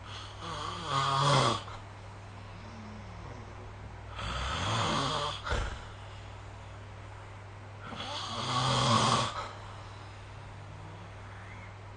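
A sleeping person snoring: three snores about four seconds apart, each lasting about a second and a half, with a steady low hum between them.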